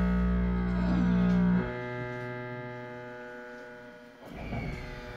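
Tokyu 9000 series electric train's VVVF inverter and traction motors whining in many steady tones over a low hum. The low hum cuts off about a second and a half in, leaving a fainter whine that fades away, and a rougher rumble comes back near the end.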